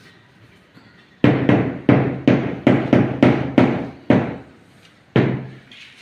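A run of about nine hammer blows at roughly three a second during tile-setting work, then a short pause and one more blow.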